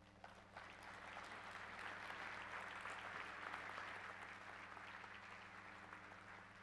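Audience applauding after a talk. The applause starts about half a second in, swells, and then slowly dies away.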